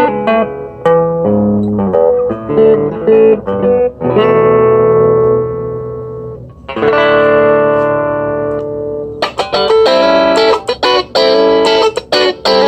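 Electric guitar played through an Orange Crush Mini amp's own small speaker. It starts with picked notes and two held chords that ring out, then turns brighter and choppier from about nine seconds in.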